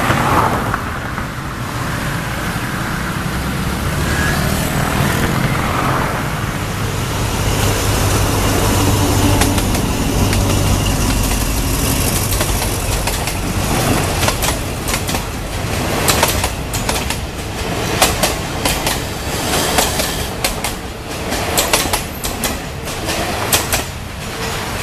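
Diesel locomotive hauling a passenger train on approach: a steady low rumble, then, from about halfway, a rapid irregular clatter of wheels on the rails that grows busier toward the end.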